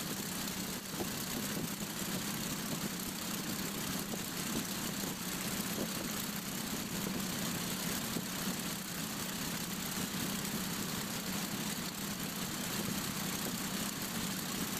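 Radial aircraft engine idling steadily, an even, unchanging running note.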